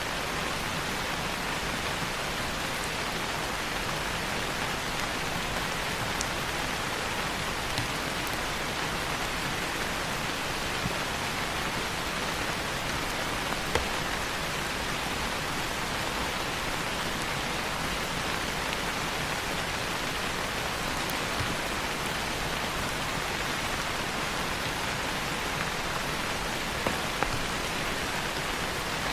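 Steady, even rain falling, with a few brief sharp pops scattered through it.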